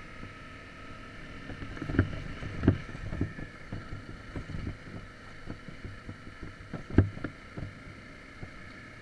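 Dirt bike ridden over a rocky gravel track: the engine runs steadily under a string of knocks and clunks as the wheels and suspension hit stones, with the hardest jolts about two seconds in, just after, and about seven seconds in.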